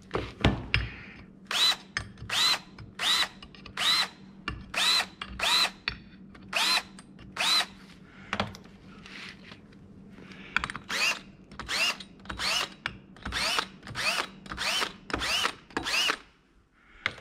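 Cordless DeWalt drill run in short trigger bursts, each a brief rising whine as it spins up, about one a second, with a quieter stretch near the middle. The drill is taking the sharp edges off the bolt holes in an aluminium plate, one hole per burst.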